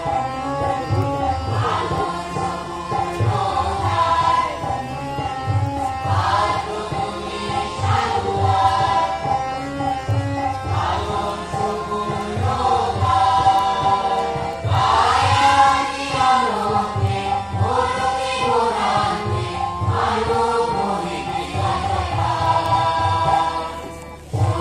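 A group of voices singing a Bengali Catholic hymn to St Anthony, with a steady low beat underneath; the sound dips briefly near the end.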